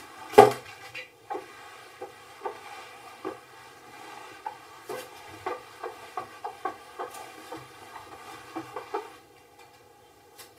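A felt whiteboard eraser wiping marker writing off a whiteboard in repeated short rubbing strokes, stopping about nine seconds in. A sharp knock about half a second in, the loudest sound, as the eraser meets the board.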